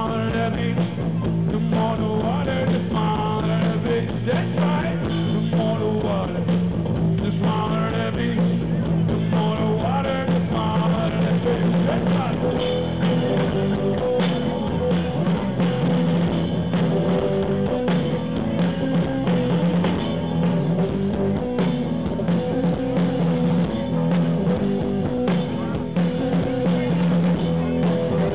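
A band playing rock music live, with guitar and a drum kit.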